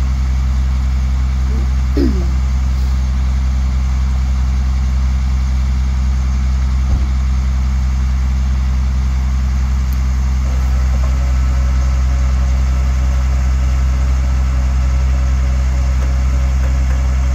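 Rollback tow truck's engine idling steadily, a constant low hum that does not change.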